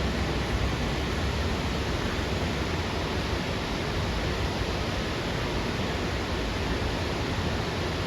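Steady, unbroken rush of water from the Lechfall waterfall.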